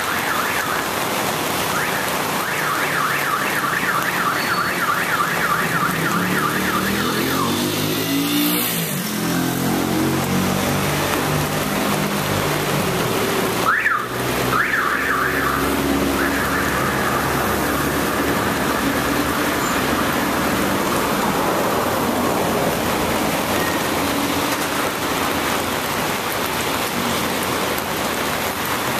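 Steady rain falling on a wet street, with a car alarm sounding a rapid repeating warble that changes its pattern several times. About a third of the way in, a vehicle drives past, its engine rising and then falling away.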